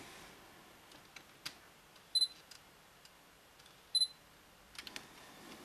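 Sony A6000 focus-confirmation beep: a short, high double beep, twice about two seconds apart, as autofocus locks on the half-pressed shutter button. Faint clicks of the camera being handled.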